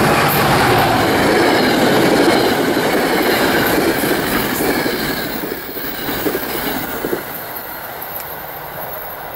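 New Jersey Transit passenger train, a PL42AC diesel locomotive hauling coaches, passing close by at speed with loud engine, wheel and rail noise. The noise dies down over the second half as the last coach goes by, with a few sharp clicks near the end.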